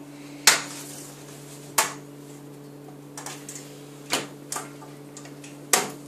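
Sharp, irregular clicks and knocks of a baby cradle's metal-tube frame and fittings being handled and pushed together during assembly, about six in a few seconds, the loudest just after the start and near the end, over a steady low hum.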